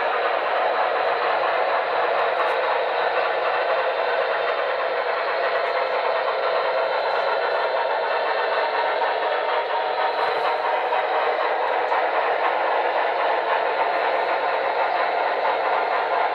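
HO-scale Broadway Limited Norfolk & Western Y6B 2-8-8-2 model locomotive running under DC power, its Paragon 3 onboard sound system playing steam locomotive running sounds through a small speaker. The sound is steady and even, with no pauses.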